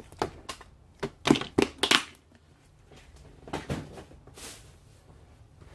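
Handling noise at a repair bench: a few short crackling rustles and clicks, like small parts and packaging being handled, with a brief hiss about four and a half seconds in.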